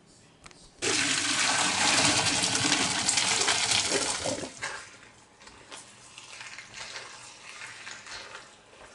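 Cooked macaroni and its cooking water poured from a large pot into an enamel colander in a sink: a loud gush and splash that starts about a second in and lasts about four seconds, then falls away to softer sounds.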